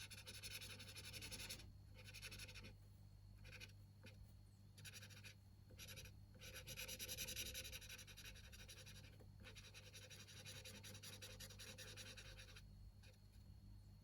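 Faint scratching of a gel pen colouring on paper, in stretches of one to three seconds with short pauses between strokes.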